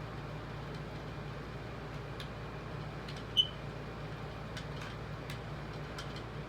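A smoke alarm gives one short, high chirp a little past halfway, the battery-warning chirp, over a steady fan hum. A few faint clicks follow near the end.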